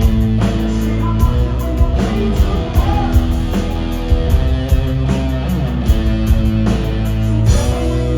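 Live rock music played loudly: electric guitar over a drum kit beating a steady rhythm.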